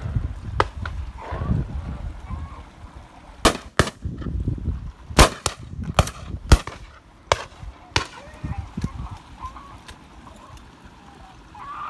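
Shotguns firing at driven pheasants: a dozen or so sharp reports, near and distant, some in quick pairs. The loudest come about five seconds and six and a half seconds in.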